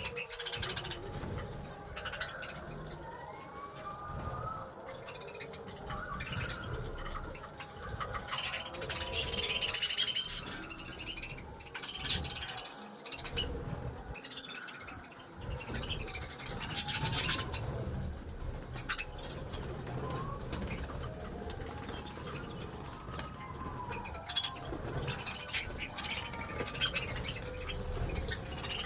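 A flock of pet budgerigars and other cage birds (finches, Java sparrows, cockatiels) chirping and chattering as they feed, with scattered clicks and bouts of louder chatter, the loudest about ten seconds in.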